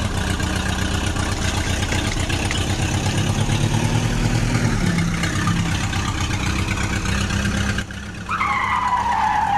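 Tractor engine running steadily with a fast low pulse. Near the end it drops away and a high tone slides down in pitch.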